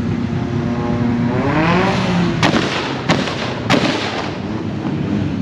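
A modified car's engine revs up over about a second, then its exhaust gives three loud backfire cracks about half a second apart.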